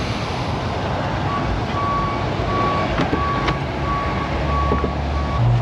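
A vehicle's reversing alarm beeping steadily, about two beeps a second, starting about a second in and stopping near the end, over a steady background noise.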